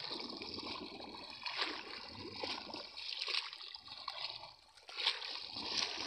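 River water sloshing and splashing around legs as people wade through it, in uneven swells with the strides.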